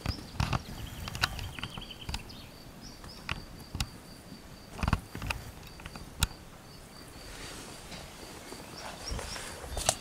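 An insect trilling faintly and steadily in a high, evenly broken tone, with scattered sharp clicks and short rustles in dry leaf litter.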